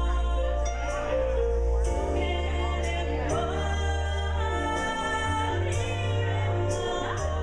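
A woman singing karaoke into a handheld microphone over a recorded backing track.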